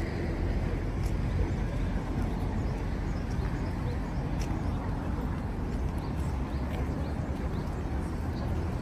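Wind buffeting the microphone, a steady low rumble, with a few faint ticks over it.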